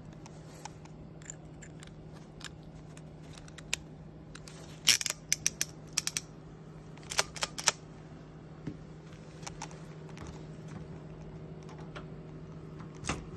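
Sharp metallic clicks of a spiral ratchet screwdriver being handled, as its bit and spiral extension are snapped into the chuck: a quick cluster about five seconds in, more about a second and two seconds later, and a few lighter ticks.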